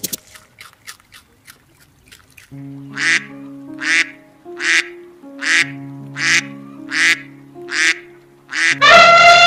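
A duck quacking over background music, about eight short quacks a little under a second apart. Near the end a loud, drawn-out call with many pitches cuts in.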